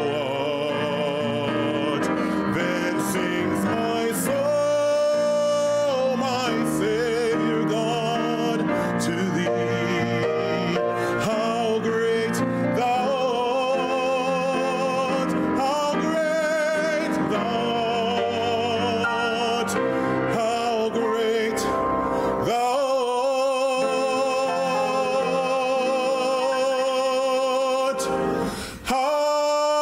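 A man singing a solo in a full, operatic voice with wide vibrato, over an instrumental accompaniment. About twenty-two seconds in the accompaniment drops away and he holds one long high note, breaking off briefly near the end before singing on.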